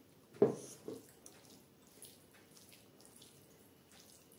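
Wet eating sounds of fingers squishing soft chana dal dubke into rice: a loud wet smack about half a second in, a softer one near one second, then faint small clicks.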